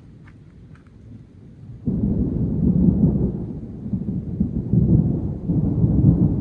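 Thunder: a sudden low rumble breaks in about two seconds in and rolls on in several swells, starting to fade near the end.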